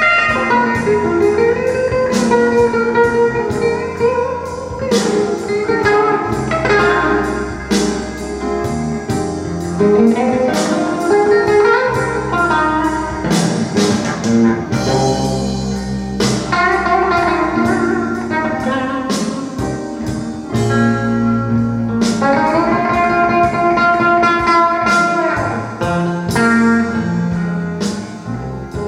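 Instrumental break of a recorded blues song, played back through Bowers & Wilkins 705 Signature loudspeakers: a lead guitar solo with bending notes over bass and a steady drum beat.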